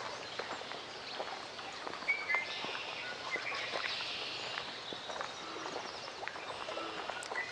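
Lakeside forest ambience: small birds chirping in short calls over a steady outdoor hiss, with a cluster of chirps about two seconds in. Scattered light clicks and rustles run through it.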